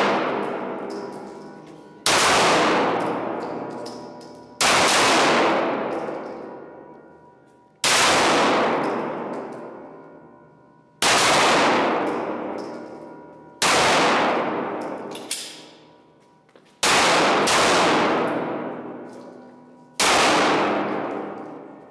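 Single pistol shots fired one at a time in an indoor shooting range, seven of them about every three seconds. Each is a sharp crack that rings and echoes through the range for two to three seconds before the next.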